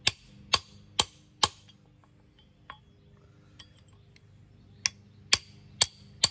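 Hand hammer striking a chisel held against a steel-canister Damascus billet on an anvil, cutting the can off the billet. Four sharp metallic strikes about two a second, a pause of about three seconds, then four more near the end.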